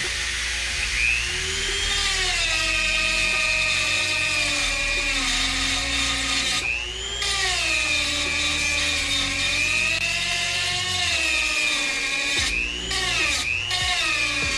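Dremel-type rotary tool grinding a metal brake-swap part to make it flat: a high-pitched whine that sags in pitch as the bit is pressed into the metal and climbs back when it is eased off, several times, with short breaks about a third of the way in and twice near the end.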